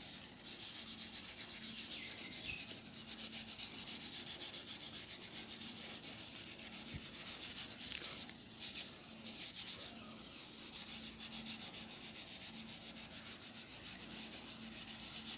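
A cloth scrubbing a gritty baking-soda and lemon paste over the rusty metal housing of a motorcycle indicator, in quick, even back-and-forth strokes with a couple of short pauses partway through: rubbing to lift the rust.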